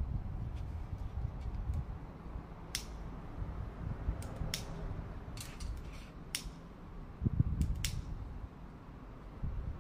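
Scattered sharp clicks and crackles of cardboard being torn and pushed into a small wood stove, about a dozen spread over the stretch, over a steady low rumble.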